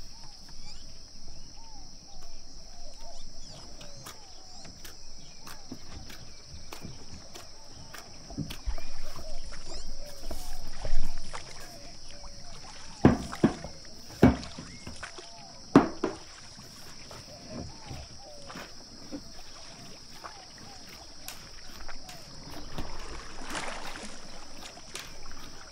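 Hands squeezing and mixing soft, crumbly dough in a glass bowl, with squishing and rustling. Around the middle come several sharp knocks on the wooden table as the dough is turned out, then the soft pressing and slapping of kneading. A steady high hiss sits underneath.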